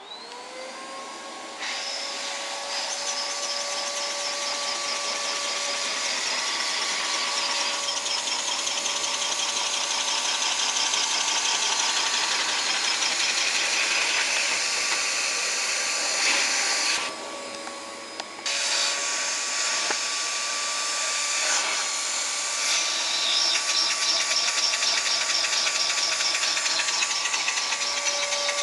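Vacuum cleaner switched on, its motor whining up to a steady pitch, while the Lego single-cylinder engine it drives by suction clatters rapidly. About two thirds of the way through, the clatter drops out for a second or so under the steady whine, then starts again.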